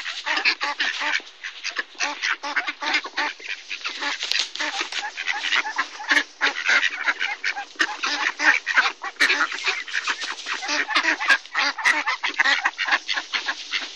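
A flock of mallard ducks quacking, many short calls overlapping in quick succession.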